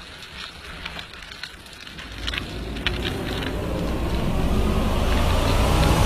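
Scattered crackling clicks, then a rushing noise that swells steadily louder from about two seconds in.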